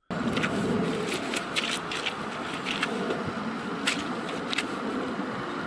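Rubber boots stepping through wet grass and mud, with short scraping and rustling sounds at irregular intervals over a steady outdoor hiss.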